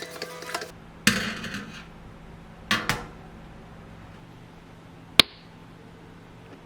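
A small appliance motor running with a rapid rhythmic clatter stops abruptly less than a second in. It is followed by a loud knock, a double click and, a couple of seconds later, one sharp click, as of parts of the appliance being handled.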